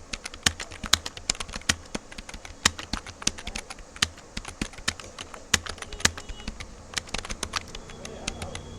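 Fast typing on a computer keyboard: rapid, irregular key clicks, several a second, over a low hum.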